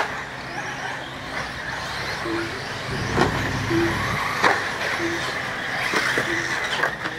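1/8-scale electric RC off-road buggies racing on a dirt track: the motors give a steady high whine, broken by a few sharp knocks.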